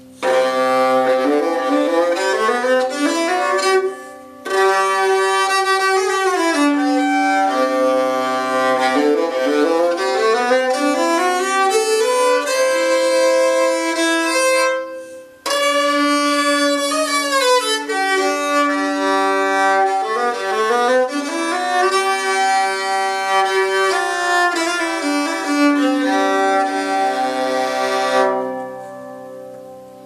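8-string Hardanger viola d'amore bowed in scales running up and down, with lower notes ringing on beneath the moving line. It breaks off briefly twice, and the last note rings away near the end.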